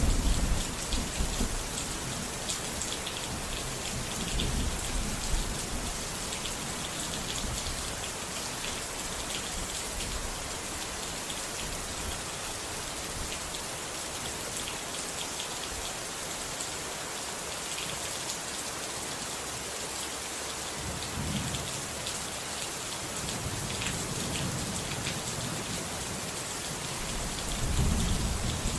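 Steady heavy rain hissing, with low thunder rumbles rolling in a few times, loudest at the very start and near the end.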